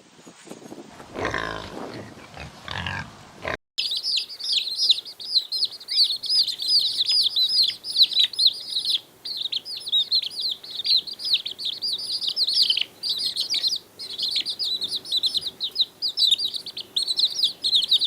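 A short animal call, cut off suddenly about three and a half seconds in, then the dense, continuous high-pitched chirping of many birds at once.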